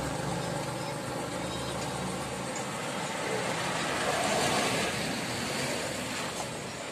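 A car driving past on an asphalt road: engine and tyre noise builds as it approaches, is loudest about two-thirds of the way through, then eases as it goes by. Beneath it, the low rumble of a truck that has just passed fades out in the first couple of seconds.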